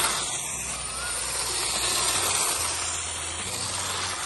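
Toy 4x4 RC rock crawler driving, its electric motors and gearbox running with a steady hiss.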